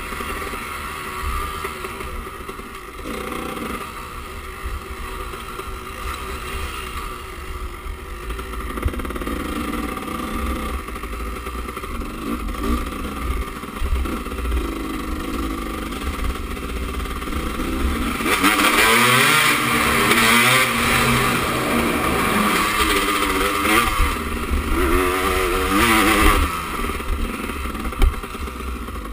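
Enduro dirt bike's engine heard from on board as it rides a rough trail, its pitch rising and falling as the rider works the throttle through the gears, with wind rumble on the microphone. The revving gets louder and harder about two-thirds of the way through, and a sharp knock comes near the end.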